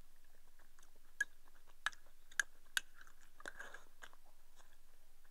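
A person eating rice from a bowl with chopsticks: quiet chewing, with about four sharp clicks of the chopsticks against the ceramic bowl.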